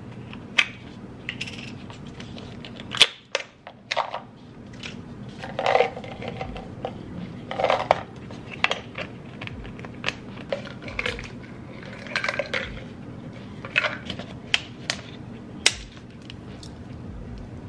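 Plastic supplement bottles being handled and opened: a string of sharp cap clicks and taps with short rattles of the pills inside.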